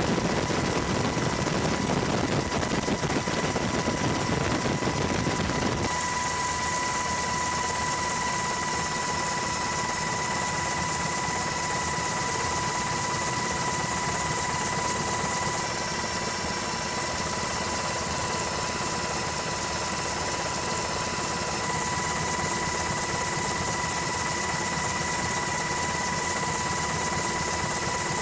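Steady helicopter engine and rotor noise heard from aboard the helicopter, with a constant high turbine whine over the rush. About six seconds in, the low rumble drops away.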